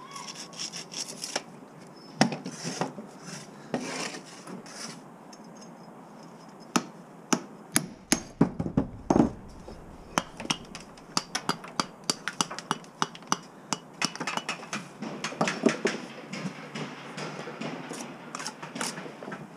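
Knocks, taps and scraping of bricks and hand tools being handled on wooden scaffold boards, in irregular runs of sharp clicks that grow denser in the second half.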